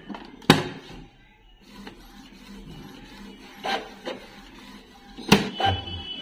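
Epson L3210 inkjet printer working through a print job: several sharp mechanical clunks from the paper feed and print-head carriage, the loudest about half a second in and a pair near the end, with quieter running between.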